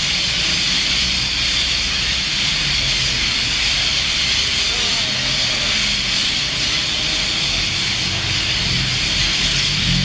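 Steady hiss, strongest in the upper-middle range, over a low rumble, unchanging throughout.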